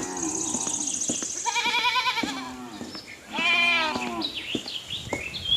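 Livestock bleating: two long, quavering calls, one about a second and a half in and another about three and a half seconds in, with light clicks near the end.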